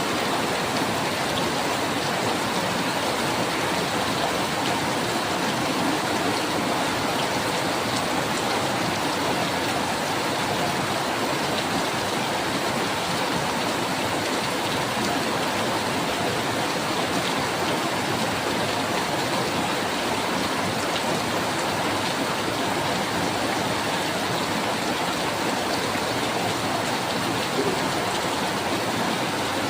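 Steady rainfall: an even hiss of rain that keeps up without a break.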